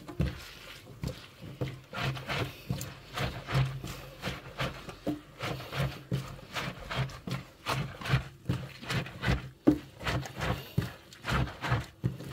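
Hands kneading and squeezing shredded young wild garlic with salt in a stainless steel sink: irregular wet squelching and crunching, a few squeezes a second. This is the salting stage that draws the bite and bitterness out of the greens before fermenting.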